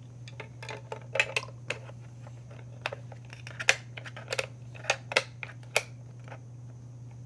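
Small hard plastic toy pieces clicking and tapping against a plastic crate as they are pushed back into place, in irregular clicks. A steady low hum runs underneath.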